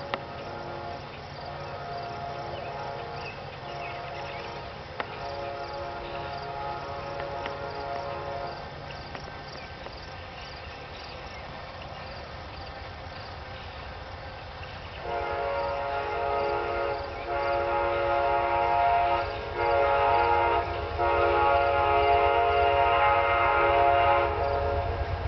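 Multi-note air horn of an approaching GE P42DC diesel locomotive: two fainter long blasts, then after a pause a louder long-long-short-long grade-crossing signal. A low rumble from the oncoming train builds near the end.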